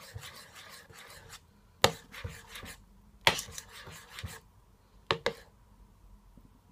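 A spoon stirring thin pancake batter in a bowl, scraping round its sides, then a few sharp clinks of the spoon against the bowl.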